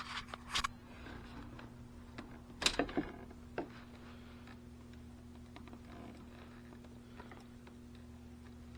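A few small clicks and scrapes from a knife cutting into battery-cable insulation, the sharpest about three seconds in, over a steady low hum.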